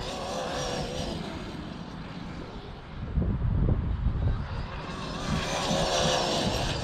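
Arrma Mojave RC truck's brushless electric motor whining as it drives across grass on soccer-cleat wheels, the pitch wavering with the throttle near the start and again past the middle. A low rumble comes in about halfway through.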